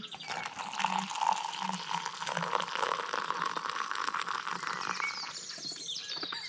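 Water poured from a stovetop kettle into a ceramic mug, in one steady stream that stops about five seconds in.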